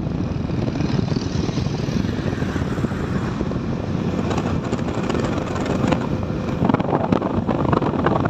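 Steady wind rushing over the microphone of a motorcycle travelling at road speed, with the bike's engine running underneath.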